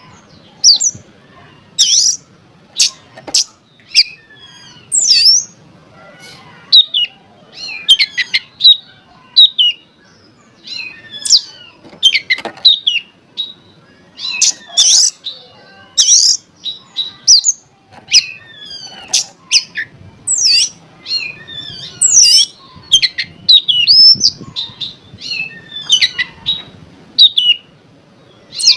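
Oriental magpie-robin (kacer) singing a varied song of sharp chirps, rising and falling whistles and harsh notes, in quick phrases with short pauses between them.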